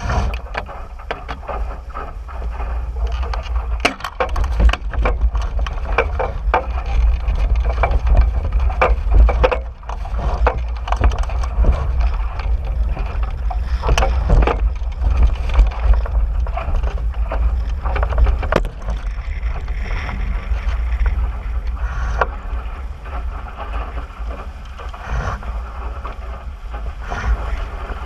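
Phantom 14 small sailboat under way in strong wind: a heavy wind rumble on the microphone, with many irregular knocks and slaps throughout, most frequent in the first two-thirds.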